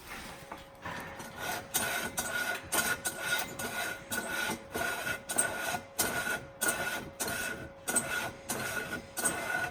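Kerosene heater being worked to get it going: repeated rasping mechanical strokes, about two to three a second, over a steady hum.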